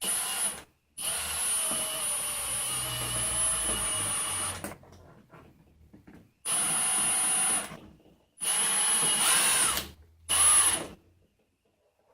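Electric power driver spinning machine screws into a panel in five short runs, the longest about four seconds, each a steady motor whine that stops abruptly.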